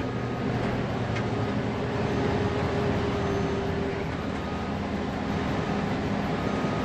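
Fermec TLK760 backhoe loader's diesel engine running steadily under load while lifting a heavy bucket of dirt, heard inside the cab. A steady higher whine joins it from about one to four seconds in.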